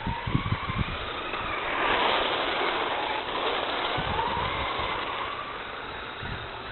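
Radio-controlled toy car's motor whining, rising and falling in pitch as it speeds up and slows, over a steady hiss that swells about two seconds in. A few low thumps come in the first second.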